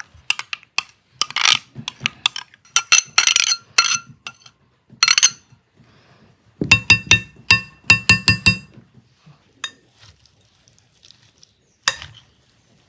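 Metal fork and spoon clinking and scraping against a glass salad bowl while a salad is tossed with mayonnaise, giving sharp ringing clinks. There is a quick run of clinks about seven seconds in.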